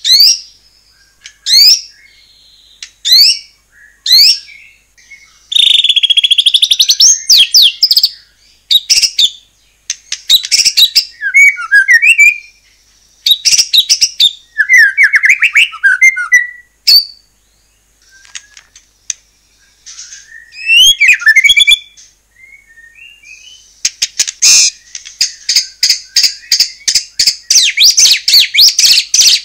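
White-rumped shama in full, continuous song. It opens with a series of sharp, high, downward-sweeping whistles about a second and a half apart, moves into varied warbling phrases, and ends in a fast run of rapidly repeated notes.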